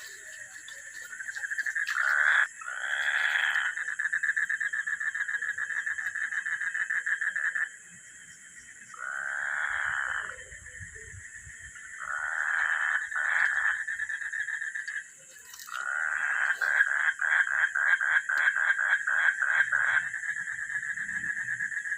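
Night chorus of frogs and insects: a steady high insect buzz and a continuous trill go on throughout, while frogs break in several times with bouts of rapidly repeated croaks, the longest near the end.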